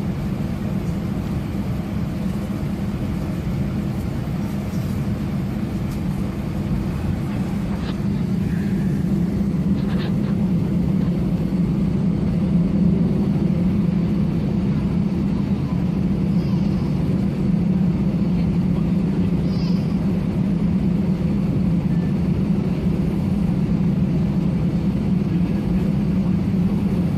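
Steady cabin noise of a jet airliner taxiing, heard from inside the cabin: an even low hum from the engines and air system, growing a little louder about ten seconds in.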